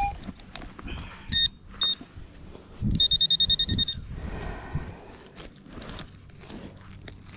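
Electronic beeps from metal-detecting gear sounding on a buried target: two short beeps, then a fast run of beeps lasting about a second, midway through. Low thuds and dirt scraping from digging sound between the beeps.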